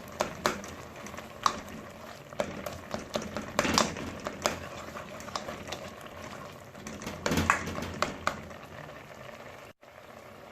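A spoon knocking and scraping against the pot in irregular clicks while breaking up boiled fish, with two busier bursts of strokes, over steady boiling water. Near the end the strokes stop and only the boiling remains.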